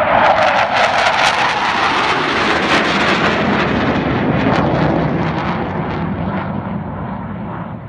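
Low-flying military fast jet passing through a valley: a loud jet roar with crackle that is loudest in the first second and slowly fades to a lower rumble.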